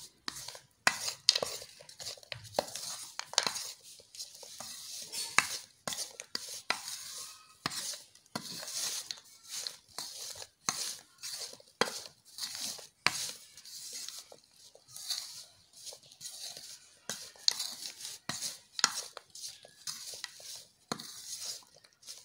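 Metal spoon scraping and clinking against a ceramic plate in quick repeated strokes, tossing candied tutti frutti pieces in flour to coat them.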